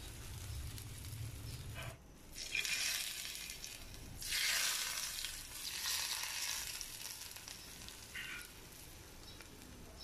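Hot tempering oil with cumin seeds and dried red chillies sizzling on the surface of a yogurt curry just after being poured over it. The sizzle swells twice, then dies down.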